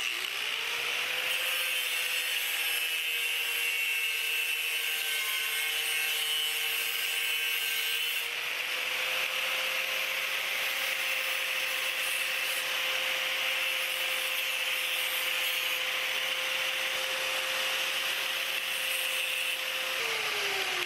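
Handheld angle grinder spinning up, then running steadily with a grinding hiss as a small metal bracket is held against its disc to bevel the sharp corners and smooth the hole. Near the end the motor is switched off and winds down in pitch.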